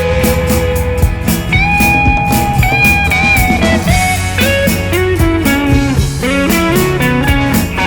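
Rock music: an electric lead guitar playing a bending, sliding melody over bass and a steady drum beat.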